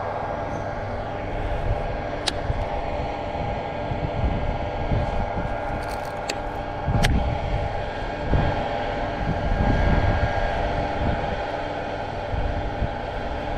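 Wind buffeting the microphone in gusts, over a steady distant engine hum, with a few sharp clicks.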